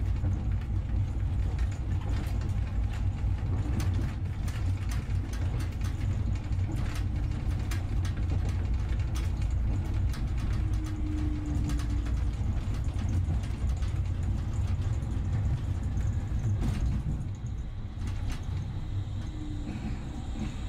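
Low rumble with dense clicking and rattling from a moving vehicle's running gear and mechanisms. A few short squeals come through. Near the end it eases off and faint steady high tones come in.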